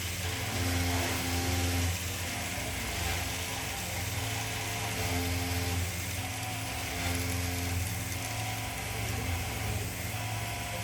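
Electric woodworking machine for turning rosary beads running with a steady low hum and hiss, the hum swelling and easing every second or two as the wood is worked.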